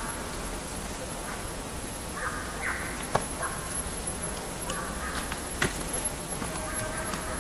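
Short animal calls in scattered bursts, a few at a time, with a longer held call near the end and a few sharp clicks in between.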